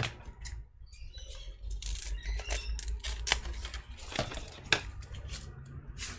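Hook-and-loop (Velcro) tape being handled, with irregular small clicks and short crackles.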